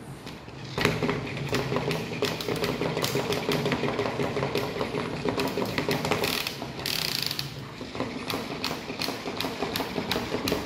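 A small motorised plastic toy running: a steady motor hum under a fast, continuous clicking rattle of plastic gears, starting about a second in.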